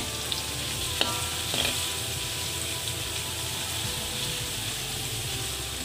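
Crushed garlic sizzling in hot oil in a metal wok as it is stirred with a metal spoon. The spoon clicks against the pan a few times in the first couple of seconds.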